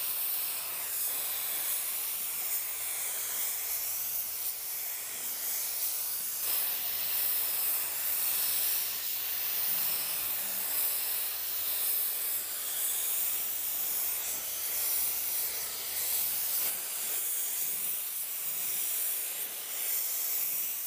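Gravity-feed compressed-air paint spray gun hissing steadily as it sprays automotive paint onto a panel.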